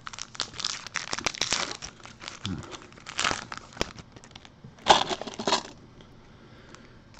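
Plastic wrapping and foil trading-card pack wrappers crinkling as they are handled and unwrapped, in bursts: a longer one in the first second and a half, then shorter ones around three and five seconds in.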